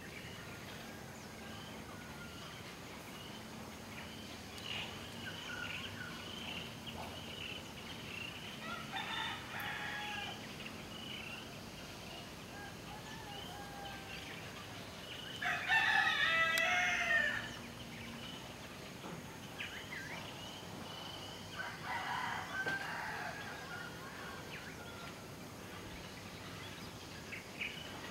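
Rooster crowing three times, each crow lasting a second or two. The middle crow is the loudest, and a steady high chirring runs underneath.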